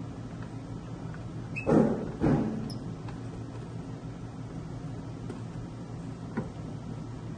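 Hex key turning a screw in the stainless steel top plate of a Belgian waffle maker: small metal ticks and a brief squeak, with two louder knocks about two seconds in, half a second apart, over a steady low hum.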